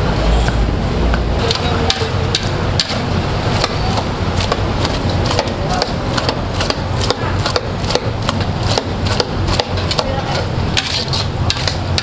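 A metal spoon knocking and scraping against a metal cooking pot as chopped beef, onions and garlic are stirred. It makes a rapid run of sharp clicks, several a second, starting about a second and a half in, over a steady background hum.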